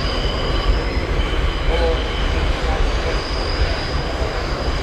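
R68 subway car running at speed through the tunnel: a loud, steady rumble of wheels on rail, with a thin, high wheel squeal that fades in and out.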